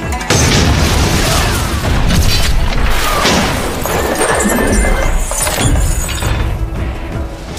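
Battle soundtrack from an action film: music over crashes, smashes and booms, starting suddenly and loudly just after the beginning.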